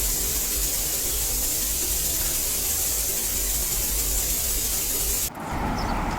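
Artificial rain falling steadily in a rain-room installation, a dense even hiss of water drops. It cuts off abruptly about five seconds in, giving way to a duller background noise with a few light clicks.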